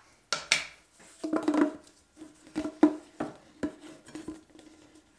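Flexible corrugated plastic drain hose being bent and handled into place, giving a run of sharp plastic clicks and crackles that thin out near the end.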